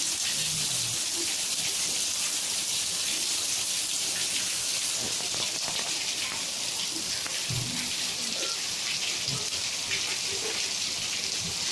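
Steady rain falling, an even hiss with a few faint, brief low sounds now and then.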